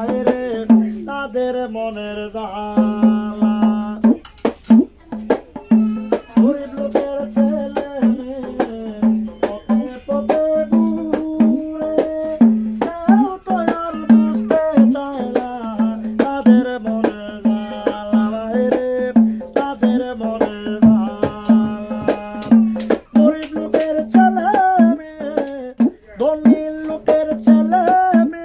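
A man singing a song in Bengali, beating a fast rhythm on a small hand-held frame drum, over a steady low drone.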